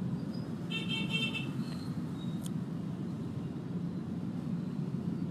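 Steady low rumble of background road traffic, with a short high-pitched horn toot about a second in.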